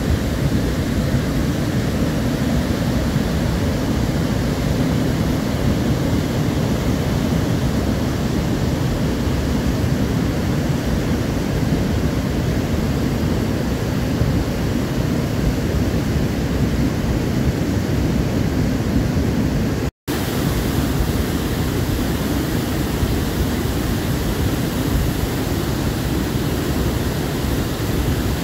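The Navisence mountain river in flood: a muddy, sediment-laden torrent rushing steadily, its noise heaviest in the low range. The sound drops out for an instant about twenty seconds in.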